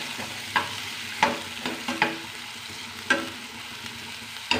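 Chopped onions frying in hot mustard oil in a metal kadhai, a steady sizzle, while a metal spoon stirs them and clinks against the pan about five times.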